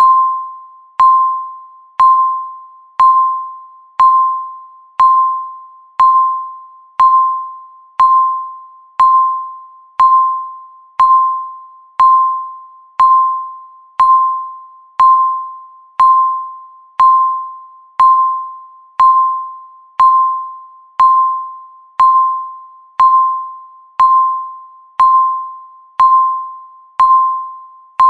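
Countdown timer beeping once a second, one beep for each second left. Each beep is a single clear tone that starts sharply and fades away before the next.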